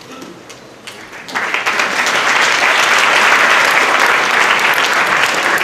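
Audience applauding: a few scattered claps at first, then full applause from about a second and a half in.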